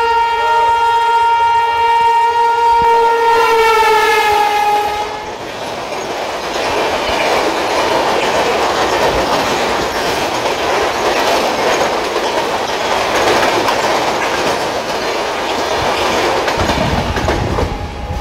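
Passing train's horn blowing a shrill, steady chord for about five seconds, sagging slightly in pitch just before it stops. Then the train's wheels rattle steadily over the rails as the coaches run past at speed.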